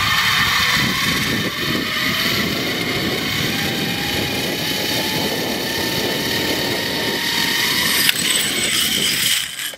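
Zipline trolley pulley running along the cable under a rider, a whine that rises slowly in pitch as the ride speeds up, with rushing wind noise over it. The whine stops about eight seconds in.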